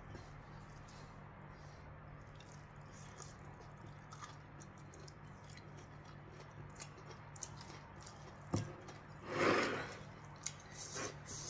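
Quiet eating sounds: fingers squishing and mixing rice and curry in a ceramic bowl, and chewing, with small clicks of fingers and food. A louder, noisy rustle lasts just under a second about nine seconds in.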